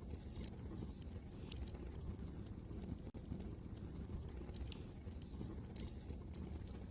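Wood fire crackling, with frequent irregular sharp pops and snaps over a low, steady rumble of wind.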